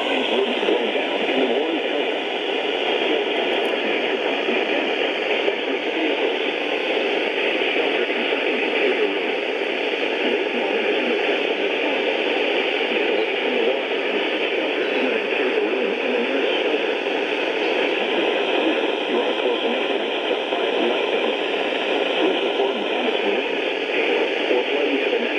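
Steady hiss of radio static, with no programme audio coming through the receiver.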